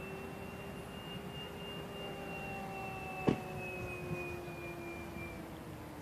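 Electric motor and propeller of a Parkzone P-47 Thunderbolt RC plane fitted with a 1250kv motor, whining steadily in flight overhead; the pitch rises a little, then slowly falls and fades near the end as the plane passes. A single sharp knock about three seconds in.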